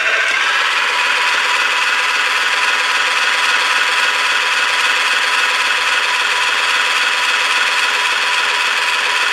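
'Play at Home' toy blender switched on, its motor running with a steady, even whir that keeps the same pitch and level.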